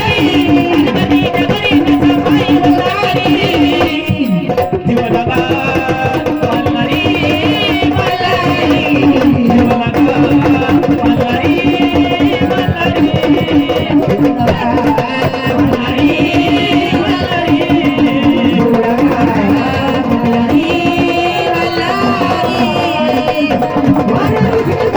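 Marathi gondhal devotional music: a hand drum plays a steady rhythm under an ornamented melody line, over a strong held low tone.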